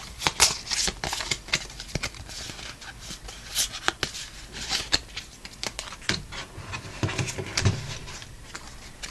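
Yu-Gi-Oh! trading cards handled one by one: irregular soft clicks and brief slides as cards are flicked off the stack and laid down, with a few duller knocks near the end.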